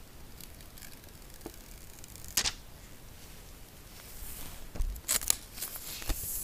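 Close-up handling sounds from peeling an Apple logo sticker off its backing sheet with metal tweezers: soft peeling and crinkling of the thin plastic, with a few sharp clicks, one about two and a half seconds in and a quick cluster around five seconds.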